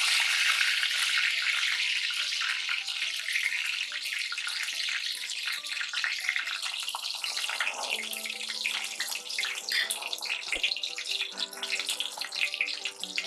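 Hot mustard oil sizzling and crackling as chillies and curry leaves fry in it for a tadka. The sizzle is loudest at first and gradually eases off.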